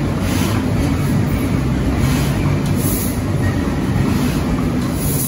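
Large stationary engine running steadily, a loud, even low drone.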